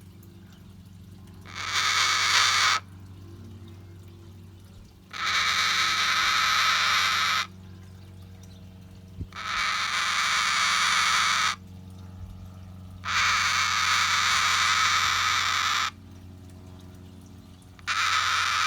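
Cockatoo making a long, raspy, breathy call, repeated five times about every four seconds, each lasting two to three seconds.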